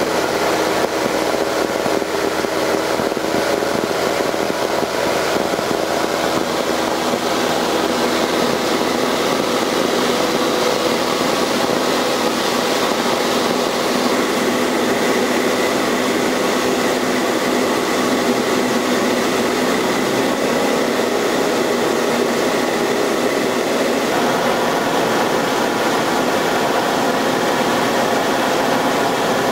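Light aircraft's engine droning steadily, heard from inside the cabin in flight. Its tone shifts slightly about halfway through and again near the end.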